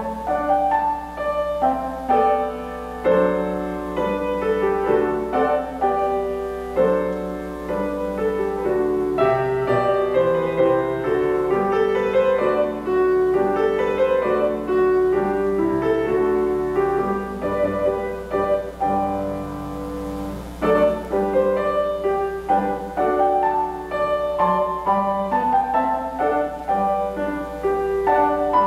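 Solo piano playing a flowing classical-style piece, with many notes in quick succession and no pauses.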